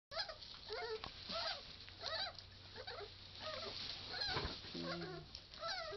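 A litter of puppies squeaking and whimpering while nursing: many short, high-pitched squeals overlapping, several a second, with one lower, longer whine about five seconds in.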